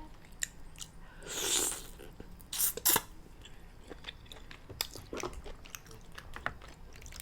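Close-miked eating of black lip mussels: wet chewing and lip-smacking with many small mouth clicks, a slurp a little over a second in, and a few sharp, louder clicks just before three seconds in.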